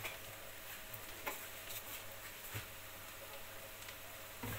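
Gallo pinto (rice and beans) frying in oil in a pan, a faint steady sizzle, with a few light ticks.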